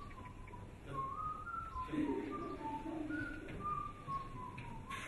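A person whistling a tune: a run of short held notes that step up and down.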